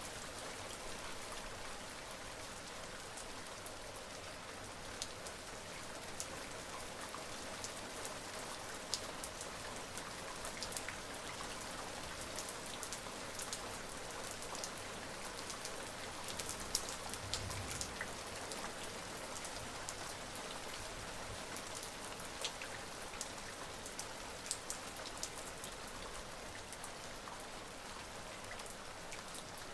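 Steady rain, with individual drops ticking sharply here and there against the even patter.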